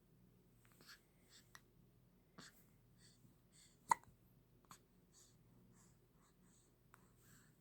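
A baby hiccuping: a few short, quiet hics spaced a second or more apart, the sharpest about four seconds in.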